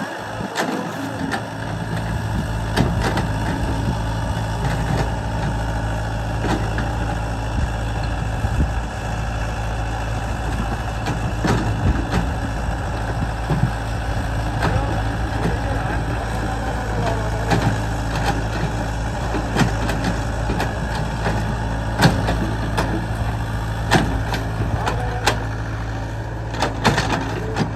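Yanmar ViO70 mini excavator's diesel engine running steadily while it digs, with sharp knocks and clanks from the bucket and digging arm every few seconds, the loudest about 22 seconds in.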